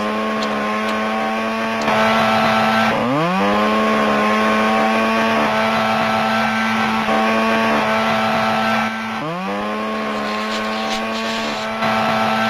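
Two-stroke chainsaw running at high throttle, revved up sharply twice, about three seconds in and about nine seconds in, each time climbing quickly in pitch and then holding a steady high whine.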